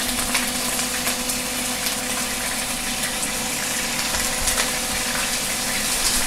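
Marinated beef frying in hot oil in a skillet: a steady sizzle full of small crackles and pops as the oil spatters. A steady low hum runs underneath.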